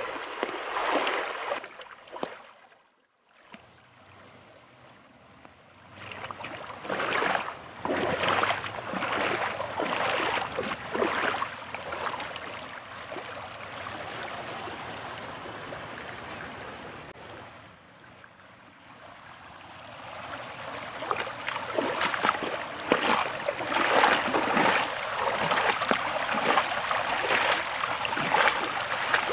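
Muddy floodwater rushing over the ground after heavy rain: a steady rush of running water that surges and eases. It drops out briefly about three seconds in and goes quieter for a while around the middle.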